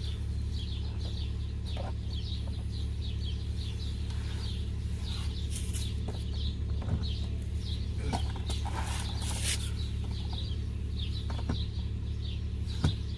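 Birds chirping over and over above a steady low hum, with scattered sharp clicks and knocks, the loudest one just before the end.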